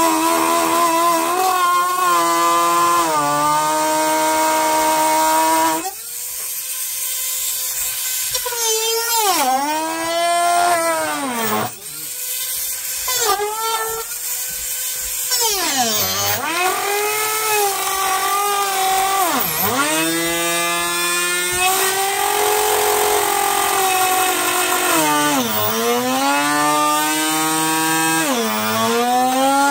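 Small high-speed electric motor driving a cutter, whining at a steady pitch at first. After about six seconds the pitch sags sharply and climbs back again and again, the motor slowing under load and recovering, as a cutter does when it bites into wood.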